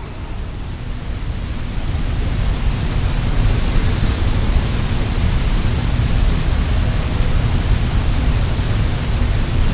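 Steady, even rushing noise that swells over the first two or three seconds and then holds.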